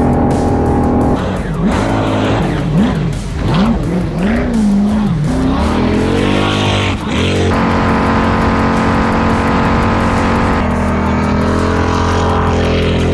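6.0-litre LS V8 engine in a jet ski running hard on the water, its pitch swinging up and down as the throttle is worked, then holding a steady high-revving note from about seven seconds in.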